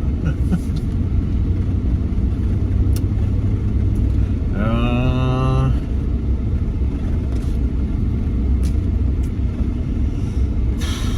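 Steady low rumble of a vehicle driving, heard from inside the cab. About halfway through comes one held, slightly wavering tone with many overtones, lasting just over a second.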